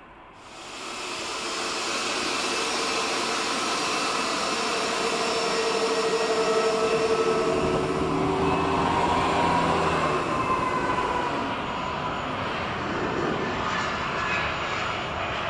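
Jet airliner's turbofan engines running, a loud steady rumble with a high whine of several tones. It comes in abruptly about half a second in, and one tone slides in pitch a little past the middle.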